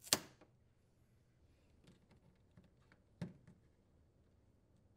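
Hands pulling the old adhesive-backed LED light bar free and unplugging its small plastic wire connector: a short sharp rustle at the start, faint ticks, then a click a little over three seconds in.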